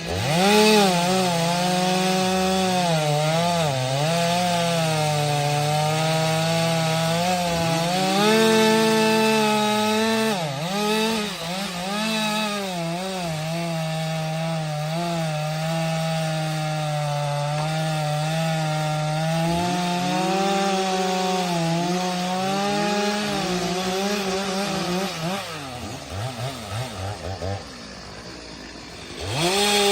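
STIHL MS 462 C-M two-stroke chainsaw at full throttle cutting firewood, its pitch dipping and recovering again and again as the chain bites under load. Near the end the engine drops back with a brief sputter, runs low for a couple of seconds, then revs up again.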